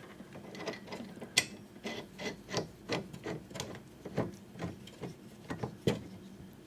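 Hand ratchet wrench clicking in an irregular string of short clicks as a fastener on a car's wiper assembly is turned.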